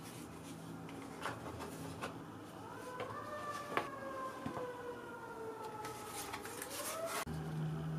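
Small paper ink-stick boxes and a square paper box being handled and set down on a cutting mat, with a few sharp taps and clicks. Behind them, from about two and a half seconds in, a siren-like wailing tone glides up, slowly sinks, and rises again before stopping abruptly near the end.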